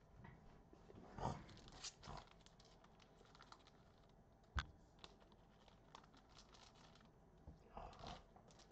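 Near silence, broken by faint rustling and a few light clicks as trading cards and plastic card holders are handled, with one sharper click a little past halfway.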